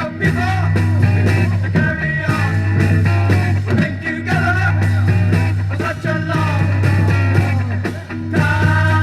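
Psychedelic rock recording playing, with a steady bass line under bending lead lines. About eight seconds in, the band shifts to long held chords.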